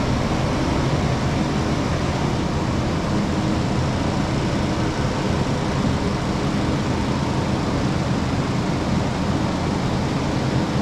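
Kubota SVL95-2S compact track loader's diesel engine running steadily while driving a GyroTrac 500HF forestry mulching head: a loud, unbroken mechanical din.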